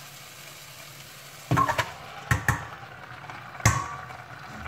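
Onion-tomato masala sizzling gently in a pressure cooker. About a second and a half in, raw beef chunks drop into the pot with several sharp clatters against the cooker, the loudest near the end.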